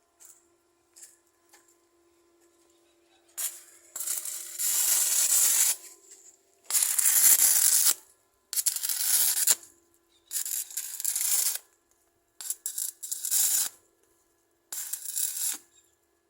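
Electric arc welding in repeated bursts of crackling hiss, each lasting one to two seconds with short pauses between welds, over a faint steady hum.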